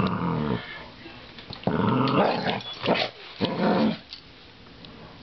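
American Staffordshire terrier growling as it tussles with a coat hanger: one growl at the start, then three more in quick succession between about two and four seconds in.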